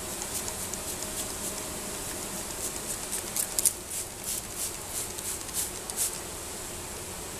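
Plastic hand spray bottle being pumped: a run of short hissing squirts, about two or three a second, clustered in the middle. Underneath is the steady hum of an agitated honeybee colony in an open hive.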